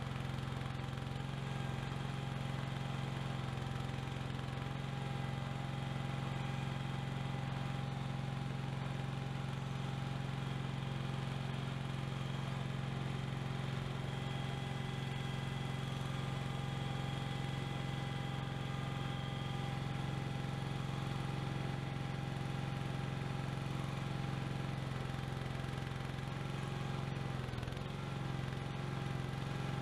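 Cub Cadet garden tractor's engine running steadily while the tractor, rigged as a forklift, holds another Cub Cadet up on its forks, with a brief wobble in the engine note near the end.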